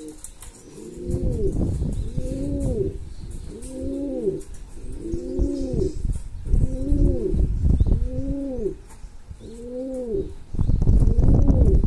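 Veleño pigeon cooing close by: a steady run of about eight coos, each rising and then falling in pitch, a little over a second apart.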